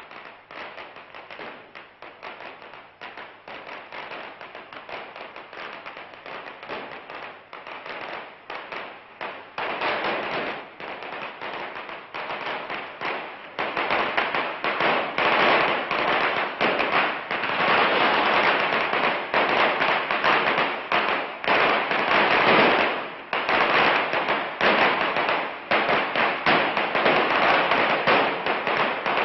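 Strings of Chinese firecrackers going off in a rapid, continuous crackle of pops, growing louder about halfway through.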